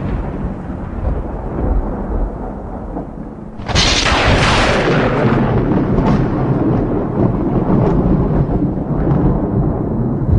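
Thunder: a low rumble dying away, then a sudden sharp crack about four seconds in that rolls on into a long, loud rumble.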